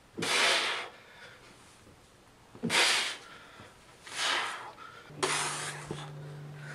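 A man's heavy breathing from exertion: four forceful exhales a second or two apart. About five seconds in, a steady low hum starts.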